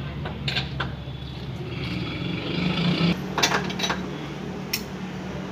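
Repair-workshop noise: scattered sharp metal clinks and knocks over a steady low machine hum, with a hissing, scraping sound for about a second in the middle.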